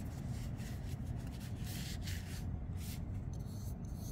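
A cloth wiping down small knife parts: a soft rubbing swish, strongest about two seconds in.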